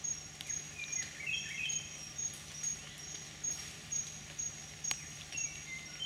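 Tropical rainforest ambience: an insect's high, steady trill pulsing about twice a second, with short whistled bird notes about a second in and again near the end, and a few sharp clicks.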